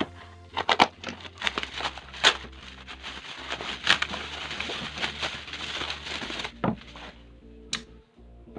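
A parcel's wrapping being torn open and crumpled by hand: a dense run of crinkling and sharp crackles, with a few isolated snaps near the end.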